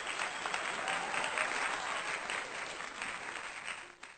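Applause from a crowd, a dense patter of many hands clapping that fades out near the end.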